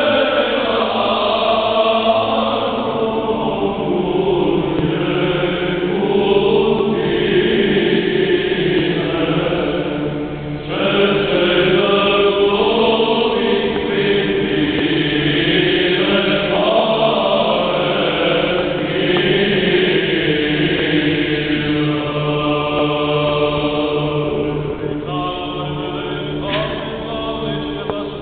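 Orthodox church choir singing a Romanian hymn in chant style, with upper voices moving over a steady low held note, and a short breath between phrases about ten seconds in.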